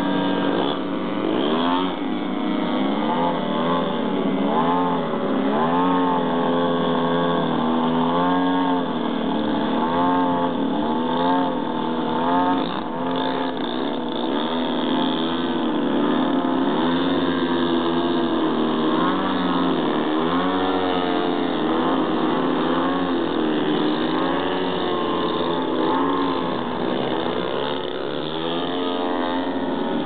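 Engines of large-scale radio-controlled aerobatic airplanes in flight, their pitch rising and falling again and again.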